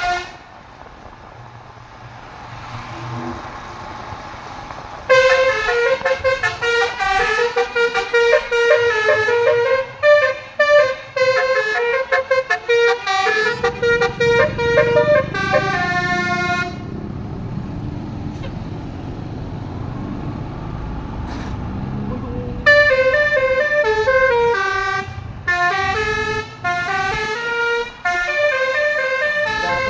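Basuri musical horn playing a tune in loud stepping notes, starting about five seconds in and breaking off at about 17 seconds. A steady rumble fills the gap until the horn melody starts again at about 23 seconds.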